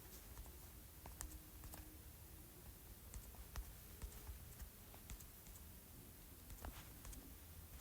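Near silence with faint, scattered clicks of fingers tapping a phone's on-screen keyboard, several spread irregularly across the few seconds.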